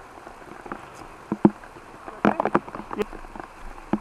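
Steady rain pattering, with a scatter of sharp knocks and scuffs of boots on a wet, muddy trail; the loudest knock comes about a second and a half in, and a quick cluster follows a little past two seconds.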